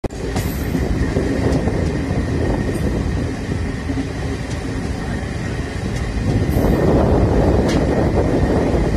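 A train running, a steady rumble with a few light clicks, growing louder about six and a half seconds in.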